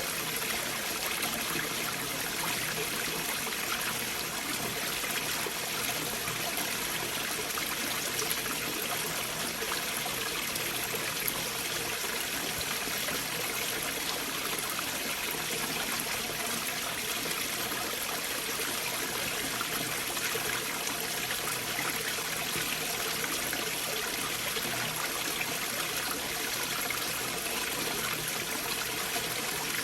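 Stream water flowing and trickling beneath large boulders: a steady, even rushing hiss that does not change.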